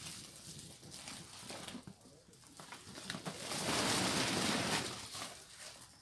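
Grapes being handled for pekmez, with a rush of crushed grapes and juice lasting about a second and a half, starting about three and a half seconds in.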